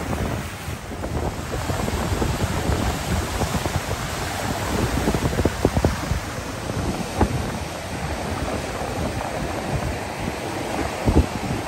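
Ocean surf breaking and washing in, with wind rumbling on the microphone. A few short thumps stand out about halfway through and near the end.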